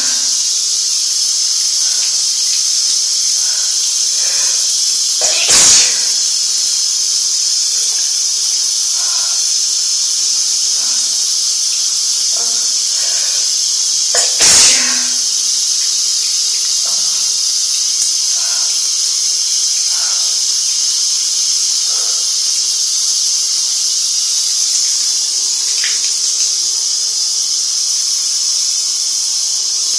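Shower spray hissing steadily, broken by two loud, sudden sneezes from a woman with a head cold, about five seconds in and again about fourteen seconds in.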